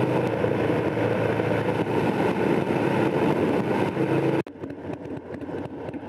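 Motorcycle engine running steadily at highway cruising speed, with wind rushing over the body-mounted microphone. About two-thirds of the way in the sound cuts abruptly to a quieter ride, where gusts of wind buffet the microphone.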